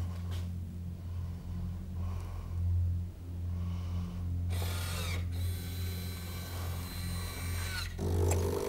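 Coffee machine at work: a steady low hum, joined about halfway through by louder mechanical whirring.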